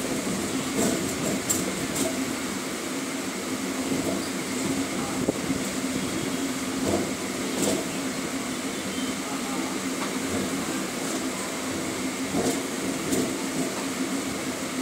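Electric commuter train running along the track, heard from its open doorway: a steady rumble of wheels on rail, with a few sharp clicks scattered through.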